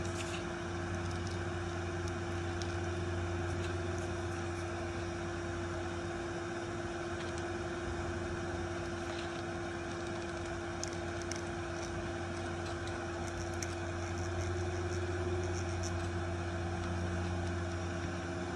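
Hot air rework station running steadily: a constant blower hum with a steady whine, growing slightly louder near the end, with a few faint ticks as a metal pick works at the chip being desoldered.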